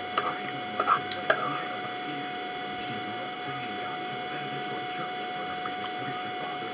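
A few light clinks of eating utensils against dishes in the first second and a half, then only a steady electrical hum with a thin high whine.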